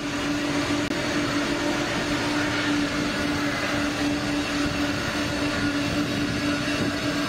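Twin-engine military tanker jet at takeoff power, lifting off and climbing away: a loud, steady rush of jet noise, with a constant low hum underneath.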